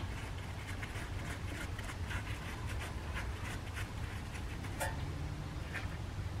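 Faint, irregular light clicks and scraping from gloved hands and hand tools working the rear brake caliper's 13mm bolts into place, over a steady low hum.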